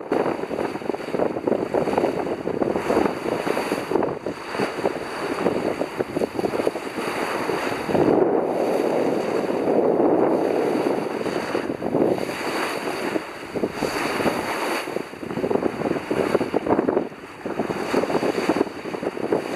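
Water rushing and splashing along a sailing yacht's hull as she sails at about 5 knots, mixed with wind buffeting the microphone.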